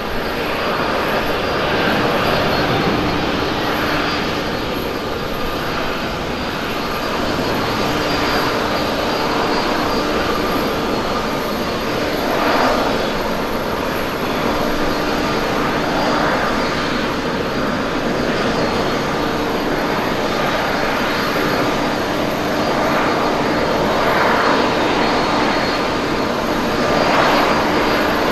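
Boeing 787-8's Rolls-Royce Trent 1000 turbofan engines at takeoff thrust: a steady jet roar with a faint hum of fan tones, running through the takeoff roll, lift-off and climb-out and swelling briefly a few times.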